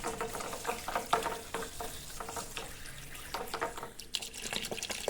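Tap water running over a washing-machine part while it is scrubbed with an old toothbrush: repeated short, irregular brush strokes over the hiss of the water.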